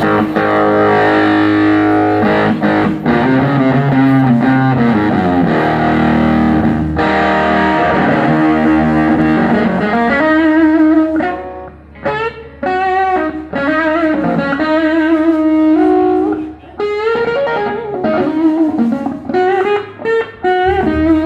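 Distorted electric guitar played through an amp during a sound check: held chords for the first several seconds, then single notes picked out one after another with short gaps and wavering pitch.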